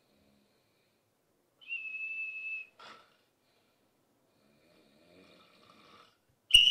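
A small whistle held in the mouth sounds one steady high note for about a second, as part of a fake snore, followed by a short breathy puff. Later come faint breathy whistling sounds, then a sudden sharp click with a loud whistle note at the very end.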